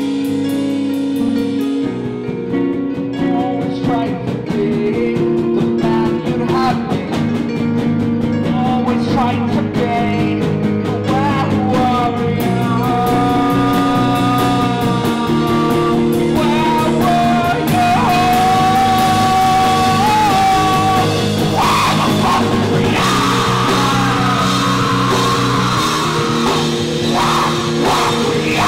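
Live rock band playing: guitar and bass chords with a drum kit that comes in about two seconds in, and a held melody line riding above.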